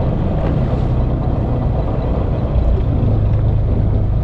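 Fishing boat's engine idling, a steady low hum.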